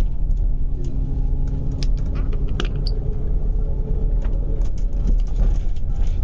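Cabin sound of a double-decker bus running at speed on an expressway: steady low engine and road rumble, with scattered light clicks and rattles from the bodywork and fittings.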